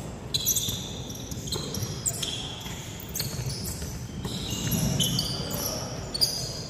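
Basketball shoes squeaking on an indoor hardwood court, many short high squeaks as players cut and stop, with a few thuds; the loudest thud comes near the end.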